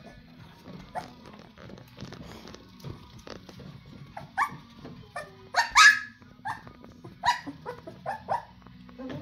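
19-day-old golden retriever puppies squealing and whining. Starting about four seconds in comes a run of short, high-pitched cries, each falling in pitch, the loudest just before the middle of the run.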